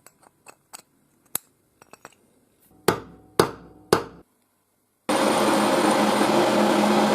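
Light clicks and taps on metal, then three sharp hammer-like strikes about half a second apart, each leaving a brief ringing. After a short pause, a power tool starts and runs loud and steady.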